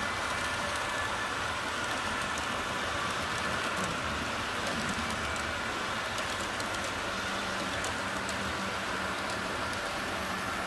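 HO-scale model train running along the track: a steady whirring hiss of metal wheels rolling on the rails, with many faint small ticks.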